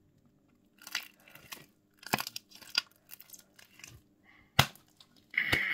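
Homemade glue-based slime being stretched and pulled apart by hand: a few short, irregular crackling, tearing squelches, with one sharp snap near the end.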